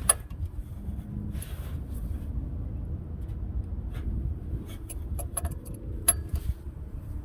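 Sharp metallic clicks and taps of a wrench on the fuel-line fittings at the truck's mechanical fuel pump, a few scattered over several seconds, over a steady low rumble.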